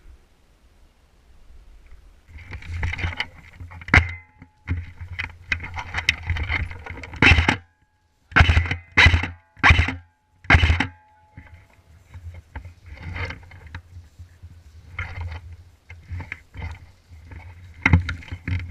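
Rumbling wind and handling noise on a body-worn action camera's microphone, with scattered sharp clicks and knocks. A few seconds in comes a run of five short, loud bursts about half a second apart, with dead-quiet gaps between them.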